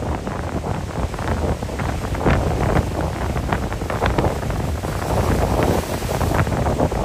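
Gale-force south-easter wind buffeting the microphone in gusts, over heavy storm surf crashing and churning on the rocks and harbour wall.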